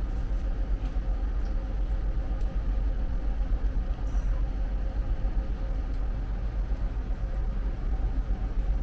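Steady low rumble of a ship's machinery, with a faint steady hum over it.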